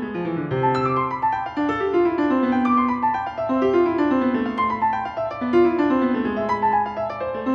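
Piano music playing, with phrases of notes stepping downward over and over.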